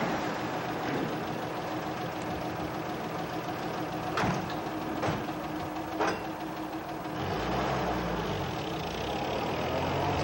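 Three sharp knocks as a four-wheel-drive utility vehicle's door is handled and shut, then its engine starts a second later and runs, rising in pitch as the vehicle pulls away.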